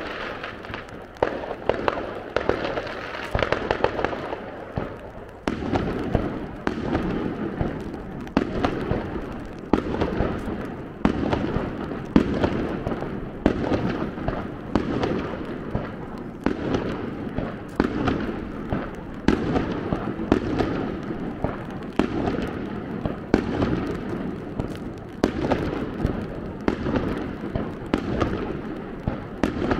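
Fireworks display: aerial shells bursting one after another in quick succession, bangs and crackle overlapping. It grows denser about five seconds in.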